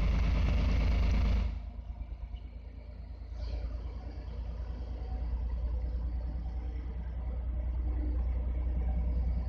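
Diesel engine of an FS D.445 diesel-electric locomotive running, its low rumble slowly growing louder as the train nears. A loud rushing noise fills the first second and a half.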